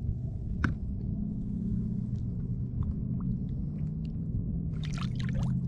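Steady low rumble with a faint hum, with one sharp knock about half a second in and a short burst of splashing near the end as a redfish is let go by hand into the water.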